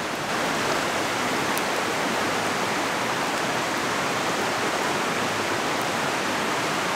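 A shallow river running over a rocky bed: a steady, even rush of water, a little louder from a moment in.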